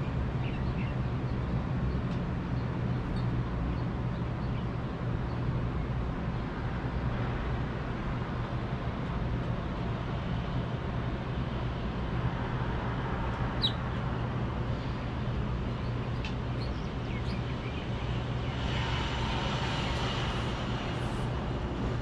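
Steady low hum of city traffic rising from the streets below, with a few faint short chirps from small birds, house finches, one clearer chirp about halfway through. Near the end a stronger hiss swells for a couple of seconds.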